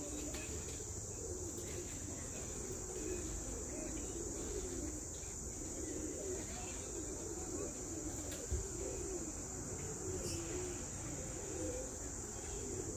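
Steady high-pitched insect trilling, like crickets, with a low wavering murmur underneath and a single brief bump about eight and a half seconds in.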